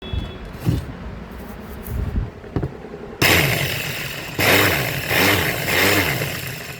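Several low knocks, then about three seconds in a Bosch GDC 120 marble cutter's motor starts abruptly and runs loudly, its pitch wavering up and down.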